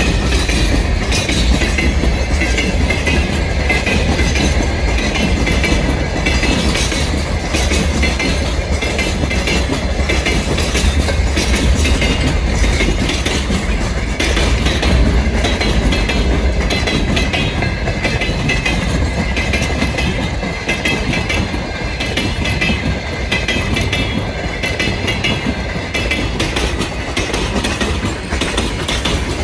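Freight train wagons rolling past close by, a loud, steady rumble with wheels clacking over the rail joints.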